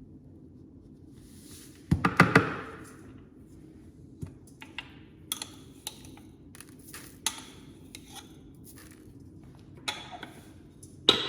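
A spoon knocking and clinking against a bowl and spice containers as spices are spooned out: a cluster of sharp knocks about two seconds in, then scattered light clicks, and another knock near the end.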